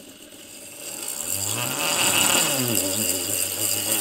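Brushless in-runner motor spinning up to high speed and whining, driving a 3D-printed PLA worm gear that turns a ball screw. The sound rises over the first couple of seconds, then holds steady. The motor has to spin this fast for the lead screw to move, and even so it is not really fast enough.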